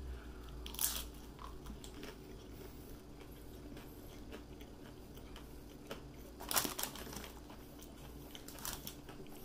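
A person biting into a hard taco shell and chewing it, with a sharp crunch about a second in and a few more crunches later on. The shell is a little too crunchy and hard to chew.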